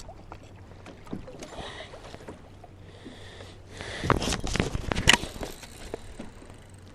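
Water swishing against a kayak, then a quick cluster of knocks and clicks about four seconds in, with the sharpest knock near five seconds, from gear being handled on the boat.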